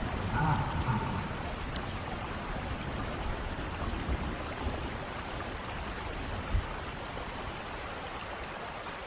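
Steady hiss of falling rain, with a single low thump about six and a half seconds in.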